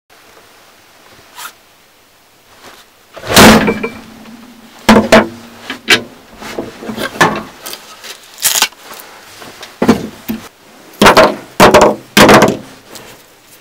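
About ten hard knocks and cracks at irregular intervals as kitchen scissors are driven point-first into a particleboard panel on a wooden workbench, breaking pieces off it. Some knocks leave a short ringing hum from the bench.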